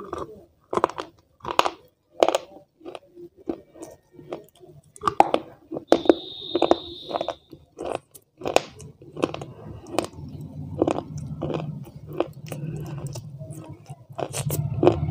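Close-miked chewing of ice: irregular sharp crunches and bites, one after another. A brief high steady tone sounds about six seconds in.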